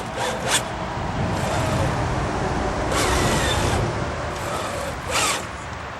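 Small electric motor of a radio-controlled model whining in several short bursts of throttle, each rising and falling in pitch, as the model is driven during a water launch.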